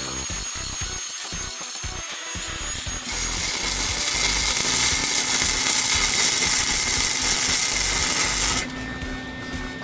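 Angle grinder with a thin disc running against the steel frame joint of a 1967 VW Bus for about three seconds. Then a wire-feed (MIG-type) welder crackles steadily as a weld is run up the joint, stopping about a second before the end.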